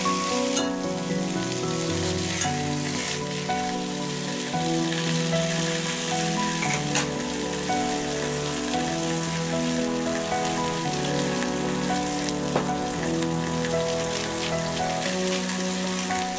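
Chicken breasts sizzling as they fry in oil in a frying pan, a steady hiss under background music of sustained, slowly changing notes. A few sharp clicks cut through the hiss.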